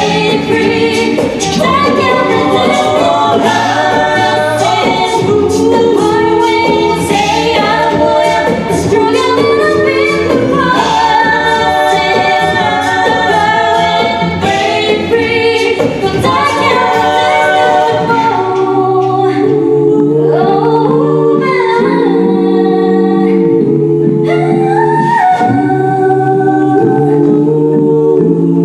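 An a cappella group singing a pop cover: several voice parts in harmony over a sung bass line. A sharp, clicky beat runs under the voices and drops out about two-thirds of the way through, leaving the voices alone.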